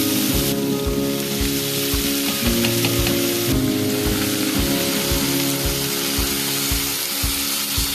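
Beef short ribs and vegetables sizzling in a hot stainless steel pan, the sizzle flaring up about three and a half seconds in as red wine is poured in to deglaze. Background music with a steady beat plays underneath.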